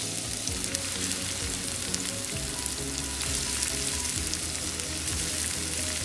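Minced garlic sizzling in hot olive oil in a stainless pan as handfuls of broccoli florets are dropped in, a steady crackling hiss.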